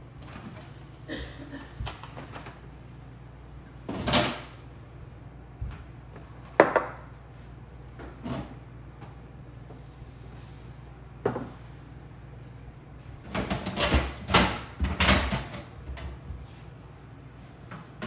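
Knocks and clatter of plastic refrigerator shelves, bins and food containers being lifted out and set down, as the fridge is emptied to reach the evaporator coils. It comes as a handful of separate thuds, then a busier run of knocks near the end.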